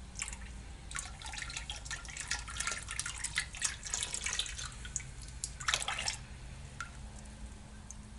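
Liquid ceramic glaze poured from a jar over an upturned pot, running off and splashing into a bucket of glaze. The pour starts about a second in and stops about six seconds in, followed by a few last drips.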